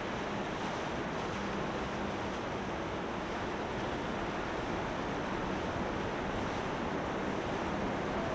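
Steady rushing of water wash and wind, with a faint low hum from a passing motorboat's engine.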